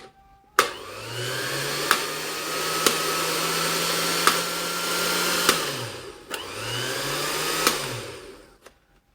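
Repaired juicer motor switched on with a click, spinning up to a steady high whir, then coasting down; it is started a second time and runs down again near the end. The motor runs at full speed, the sign that the repair has worked.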